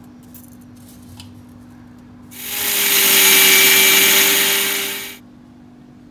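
Electric mixer grinder running for about three seconds, grinding drained, soaked raw rice to a fine powder in its steel jar. The motor starts about two seconds in, runs with a steady hum, and cuts off sharply.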